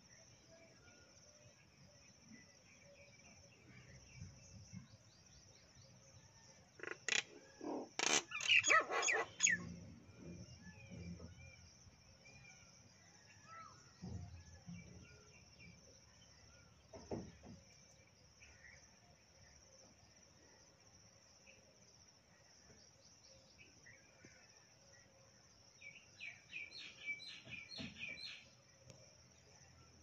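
Common mynas calling: a loud burst of calls about seven to ten seconds in, single calls a little later, and a quick run of about ten repeated notes near the end. A steady high insect drone runs underneath.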